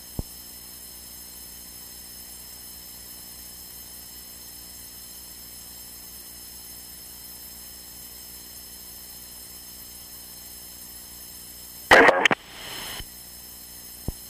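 Steady electrical hum on the aircraft's radio and intercom audio feed, heard between transmissions. A click comes just after the start, a brief loud burst of radio noise about 12 seconds in, and another click near the end.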